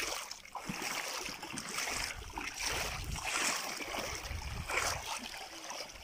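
Shallow lake water splashing and sloshing around a wading child's legs: an irregular rushing noise with a low rumble underneath.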